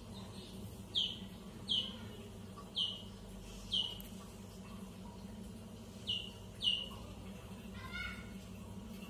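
A small bird chirping: six short, high calls, each falling in pitch, four close together and then two more, over a steady low hum.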